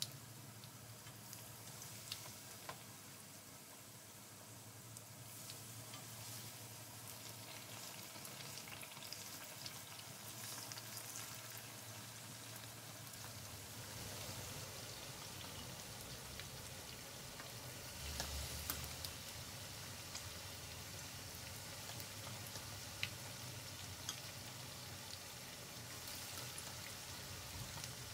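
Batter-coated eggplant slices deep-frying in oil in a pan: a steady sizzle with scattered crackles and pops. It gets louder about halfway through, once more slices are in the oil.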